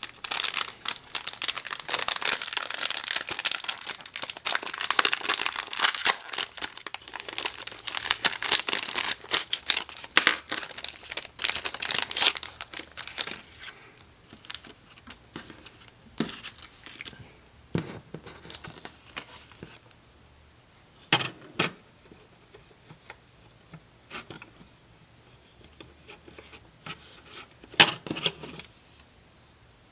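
Plastic packaging crinkling and being torn open steadily for the first dozen seconds or so, then quieter, sporadic handling rustles and a few sharp knocks.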